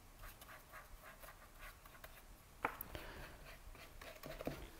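Faint paintbrush strokes on sketchbook paper: a run of soft, short brushing and scratching sounds, with one sharper click a little before three seconds in.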